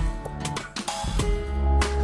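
Background music with drums, a deep bass and held melody notes, a beat hitting about every half second.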